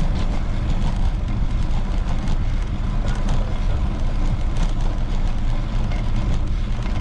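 Steady low rumble of wind and road noise on the camera's microphone while riding a bicycle through city streets, with passing traffic mixed in.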